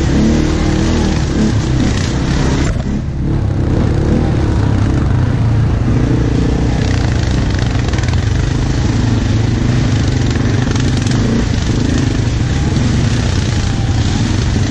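Quad bike (ATV) engine running while riding a rough dirt trail, the throttle easing off briefly about three seconds in and then picking up again.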